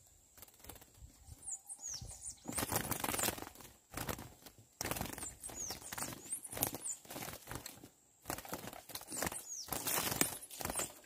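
A trapped female curió (chestnut-bellied seed finch) fluttering its wings against the bars of a wooden trap cage in three bouts, with quieter pauses between them. A few short, high, downward-sweeping calls are heard between the bouts.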